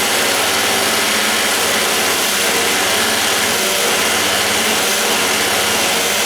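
Electric drill running steadily at speed, a worn bit held against the edge of a door strike plate opening to ream it wider.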